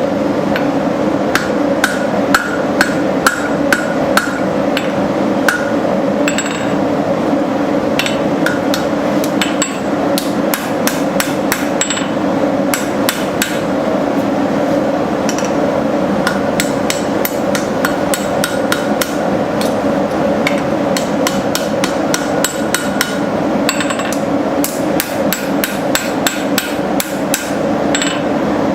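Hand hammer striking hot steel on an anvil in fast runs of blows, some ringing, as a knife blank is drawn out and shaped, over a steady background hum.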